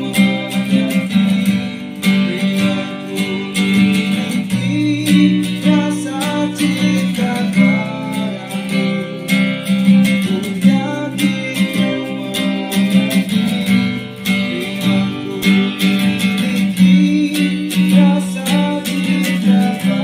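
Acoustic guitar strummed in steady chords, with a man singing along.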